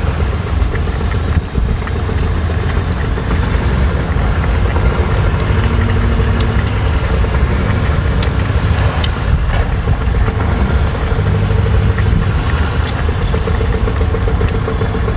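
A motor running steadily with a low rumble, with a few faint clicks over it.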